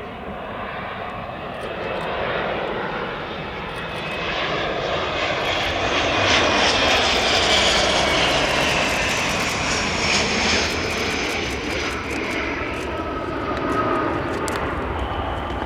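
Hawker 800XP business jet's twin Honeywell TFE731 turbofans passing close on landing: a jet rush and whine that grows louder, peaks about six to ten seconds in with a high whine falling in pitch as it goes by, then eases slightly.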